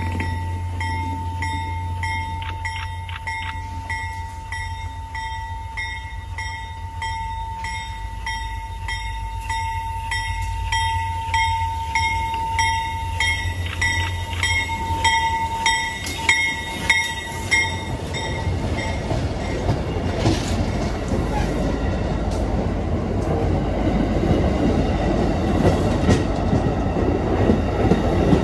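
Amtrak Downeaster passenger train rolling into the station: a warning bell dings at about one and a half strikes a second over a steady tone for the first two-thirds. Then the bell stops and the rumble of the wheels on the rails builds as the stainless-steel coaches pass close by.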